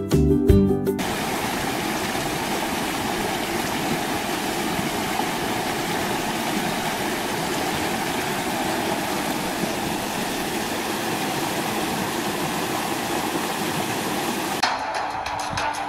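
Fast stream water rushing over rocks and small rapids, a steady even rush. Intro music ends about a second in, and different music starts near the end as the water sound cuts off.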